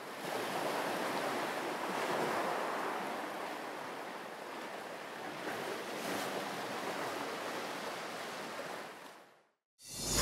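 Ocean surf washing onto a beach: a steady rushing that swells and eases, then fades out near the end.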